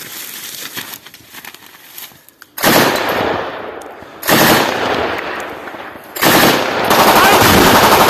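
Close machine-gun fire: after a couple of quieter seconds, three long bursts of rapid automatic shots, the last still firing at the end.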